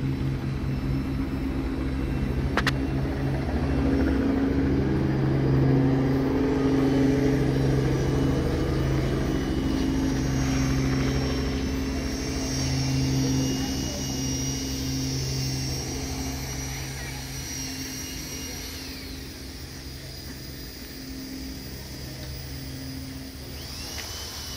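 Steady engine drone that grows louder over the first few seconds and fades away over the second half.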